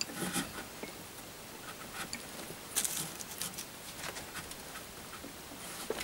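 Braided rope rustling and sliding against itself and a wooden rail as hands tie a clove hitch and draw it snug. It comes as a run of short, scratchy scrapes and soft clicks, the loudest a little under three seconds in.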